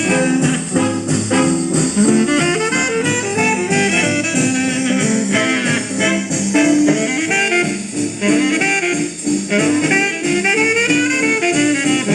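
A vintage 78 rpm record playing on a Panasonic stereo phonograph: continuous jazz-style band music with horns.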